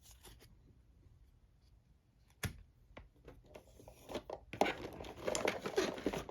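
Plastic packaging being handled, crinkling and tearing, after a single sharp click about two and a half seconds in.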